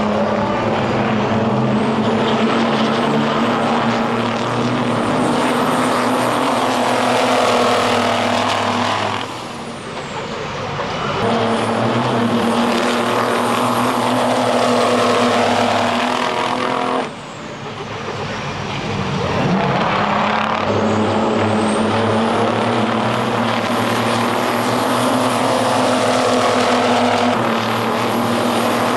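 The diesel engines of several 900-horsepower big-rig race trucks running hard on the oval, a steady heavy drone with a high whine rising and falling over it. The sound dips suddenly twice, about a third and two-thirds of the way through, then builds again.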